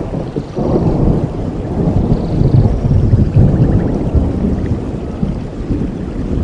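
Rolling thunder during a rainstorm: a loud low rumble that swells about half a second in and slowly eases off, with rain falling underneath.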